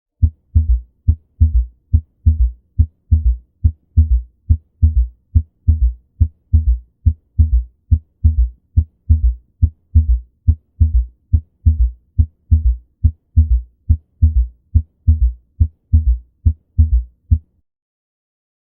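Recorded heartbeat heard through a stethoscope: a steady rhythm of short, low thumps, about two a second, which stops about a second before the end.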